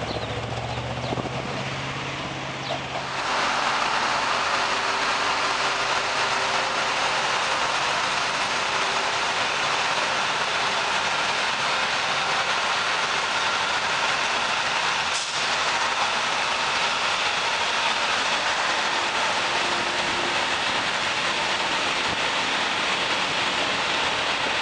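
For about the first three seconds a Trenitalia Minuetto diesel multiple unit runs with a low, steady engine drone. After a sudden change, a steady loud rushing hiss fills the rest, around an ALn 668 diesel railcar running in the station.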